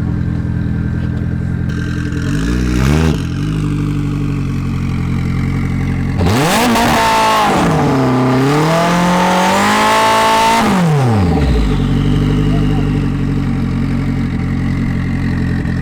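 A car engine running steadily at idle, blipped once about three seconds in. It is then revved hard for about five seconds, the pitch climbing, dipping and climbing again before dropping back to idle.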